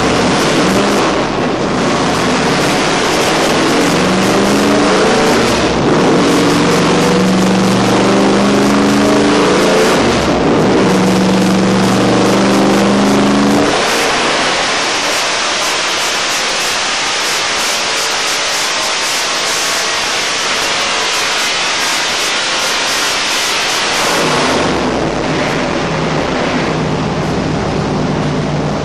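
A 416 cu in stroker LS3 V8 in a race car on a chassis dyno, pulling hard under load with the revs climbing for about fourteen seconds, with a short dip about ten seconds in. The throttle then shuts and the engine note drops away into a steady hiss as the rollers and drivetrain wind down. About ten seconds later the engine note comes back, steady and lower.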